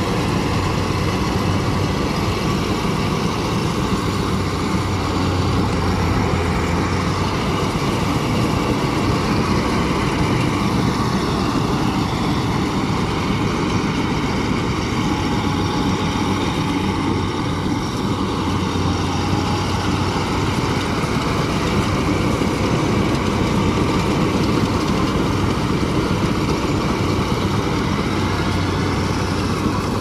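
Yanmar AW70V crawler combine harvester running steadily as it cuts and threshes rice, with a constant low engine hum under the machinery noise.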